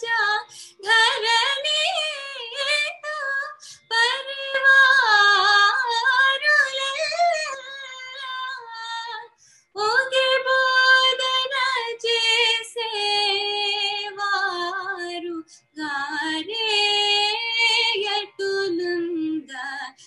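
A young woman singing a Carnatic alapana in Abheri raga: long, wordless, gliding phrases with rapid ornamental turns, broken by brief pauses for breath about three times.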